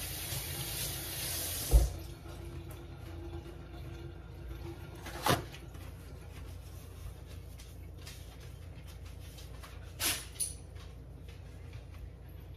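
A steady rushing hiss, like water running, stops with a sharp thump about two seconds in. Low room noise follows, with a short knock about five seconds in and another about ten seconds in.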